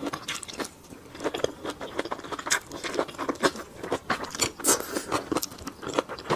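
Close-miked biting and chewing of a blistered green pepper (tiger-skin pepper): a dense run of small, irregular mouth clicks and crackles.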